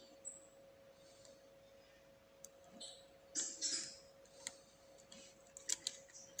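Small irregular metallic clicks and ticks from a lock pick and tension wrench working the pins inside an Abus 7240 brass padlock, with a louder pair about halfway through and a quick cluster of sharp clicks near the end.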